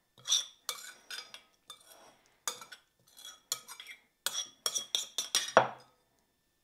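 A spoon clinking and scraping against small ovenproof cups in quick, irregular taps as a mixture is spooned into them, with one louder knock near the end.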